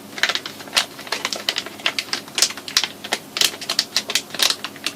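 Plastic packaging being handled and opened, making irregular crackles and clicks several times a second.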